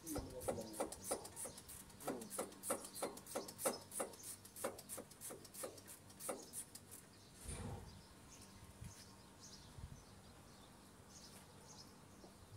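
Ratchet wrench being worked on bolts in a car's engine bay: a fast run of short rasping clicks for the first several seconds, then only scattered faint ticks, with a dull thump about seven and a half seconds in.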